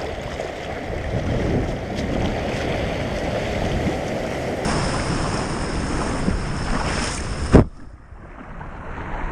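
Sea waves washing over shoreline rocks, with wind buffeting the microphone. A single sharp knock comes near the end, the loudest moment, after which it is quieter.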